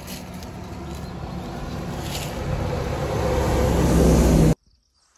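Low rumbling noise that grows steadily louder for about four and a half seconds, then cuts off abruptly.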